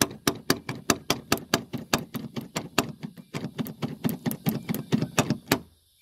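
Newly fitted, greased outer door handle of a Holden Rodeo RA / Colorado RC being pulled and released over and over. It makes a rapid run of plastic-and-metal clicks, about five a second, that stops suddenly just before the end.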